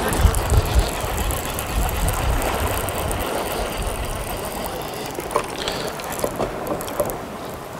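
Multiplier casting reel being wound in to retrieve the line after a cast, its gears ticking steadily, with a low rumble that eases after about three seconds.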